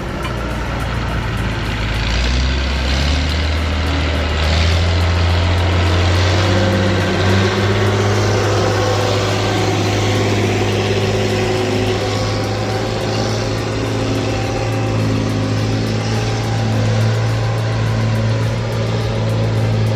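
Heavy machine's engine running under load with a deep, steady hum. About seven seconds in it revs a little higher and holds there.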